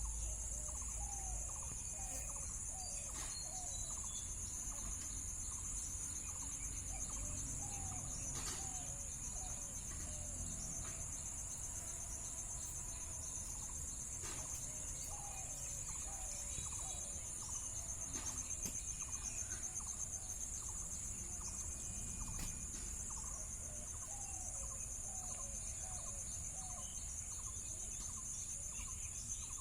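Steady high-pitched drone of an insect chorus, with four runs of short, quick calls from an animal, roughly every seven or eight seconds.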